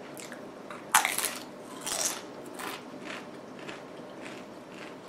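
Corn tortilla chip being bitten and chewed: a sharp crunch about a second in, a second crunch about a second later, then quieter crunches of chewing.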